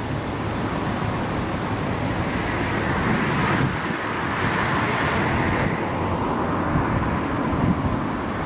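Road traffic noise with wind: a vehicle's tyre and engine noise swells and fades about halfway through, with a faint high whine at the same time.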